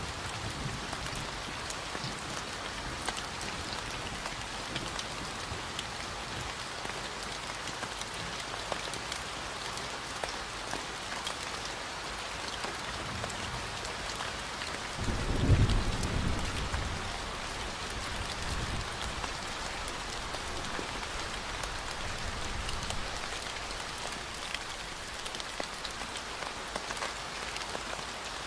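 Steady rain falling, an even hiss of drops, with a brief low rumble about halfway through.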